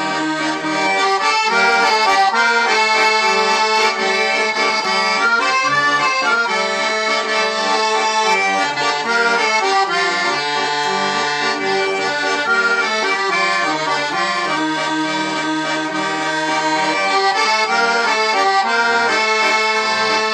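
Russian garmon (button accordion) played solo, a continuous instrumental tune with a melody over a steady bass-chord accompaniment and no singing.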